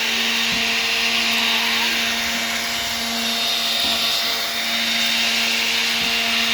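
Electric sander running steadily on wood: a constant motor hum under a broad hiss of sanding.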